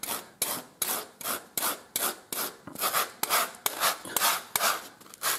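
Large hand rasp drawn in quick, even strokes across a saddle knee-roll block, about two to three scraping strokes a second, shaving the roll to shape.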